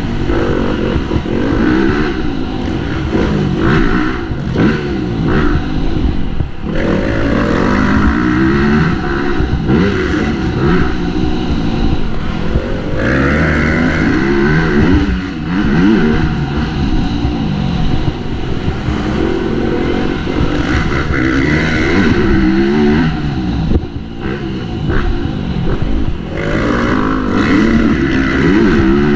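Motocross bike engine revving up and dropping back over and over as it is ridden around a dirt track, its pitch rising and falling every second or two.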